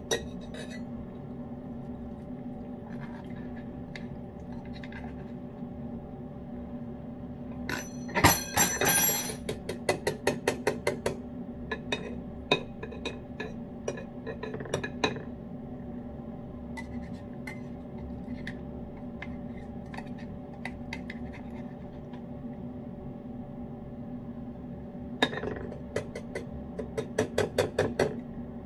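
Metal spoon clinking and scraping against a can and a food bowl while wet cat food is spooned out, in two spells of quick clinks, about 8 seconds in and again near the end, with a few single clinks between. A steady low hum runs underneath.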